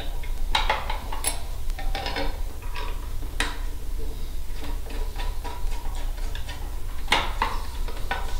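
Metal bolts being fitted by hand into a sector antenna's metal mounting bracket: a string of irregular small metal clicks and clinks, with a few louder knocks.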